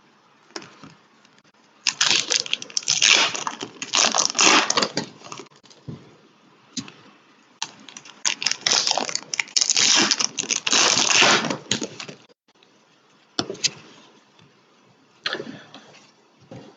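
Foil trading-card pack wrappers crinkling and rustling as they are handled and opened, in two long stretches about two seconds in and from about eight to twelve seconds, with a few short crackles later.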